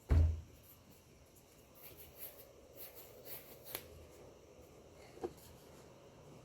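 A dull thump at the very start, then scattered light clicks, taps and rustles of small objects being handled, with a sharper tick about halfway through.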